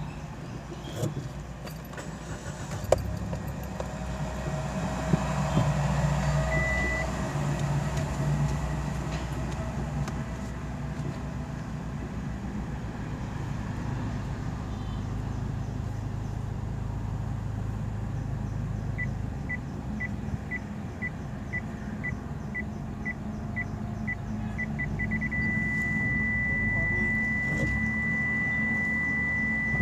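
Maruti Suzuki Baleno moving slowly with its engine running low while the rear parking sensor beeps. Evenly spaced beeps start about two-thirds of the way in, quicken, and then merge into one continuous tone for the last few seconds as the rear bumper closes right up on an obstacle behind the car.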